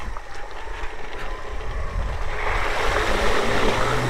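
Suzuki Van Van 125's small single-cylinder engine running as the motorcycle fords a river, with water splashing and rushing around it, the splashing getting much louder about two seconds in.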